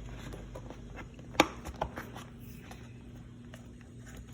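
Light handling noises as a choke cable is fed back along its route on an ATV: one sharp click about a second and a half in, then a few fainter clicks and taps, over a faint steady hum.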